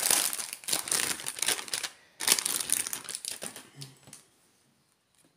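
Plastic packaging crinkling as it is handled and a bundle of embroidery threads is pulled out of it: about two seconds of crinkling, a brief pause, then a second bout that dies away about four seconds in.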